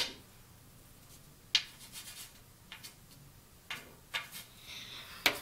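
Pool cue tip being chalked: several short, scratchy rubs of a chalk cube on the leather tip, spaced irregularly.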